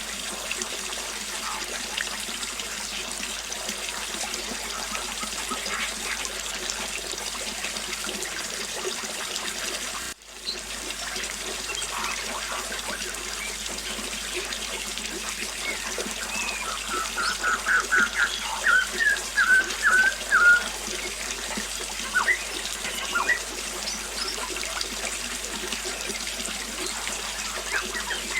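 Small waterfall splashing steadily, with birds chirping over it. About two-thirds of the way through, a bird gives a quick run of repeated high notes, and the water sound drops out for an instant about ten seconds in.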